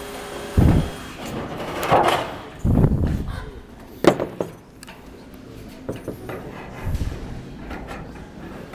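Scattered knocks and thumps from hands-on construction work, about five over several seconds, including a sharp click about four seconds in.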